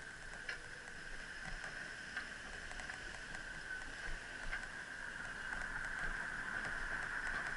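Bicycle riding along a paved street: a steady rolling hiss with scattered light clicks and rattles.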